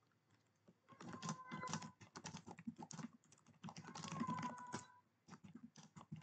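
Rapid typing on a computer keyboard, with a cat meowing twice over it, about a second in and again around four seconds in.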